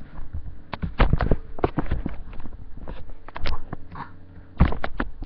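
Irregular knocks and clicks of handling noise on a handheld recording device, with a brief faint baby's coo about four seconds in.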